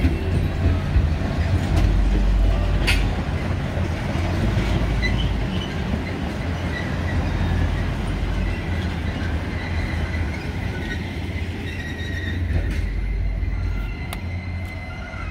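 Canadian Pacific Holiday Train passenger cars rolling past close by: a steady low rumble of wheels on rail, with a sharp click about three seconds in. A thin, high wheel squeal comes in during the second half.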